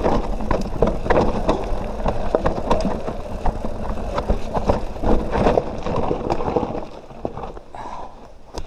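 Canyon Nerve mountain bike ridden over rough, rocky trail: tyre noise with many sharp knocks and rattles from the frame, suspension and chain. It gets quieter near the end.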